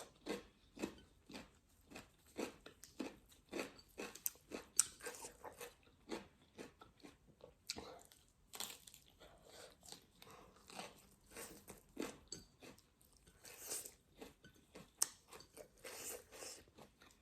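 Crunchy salad being bitten and chewed: short, irregular crunches, a few a second.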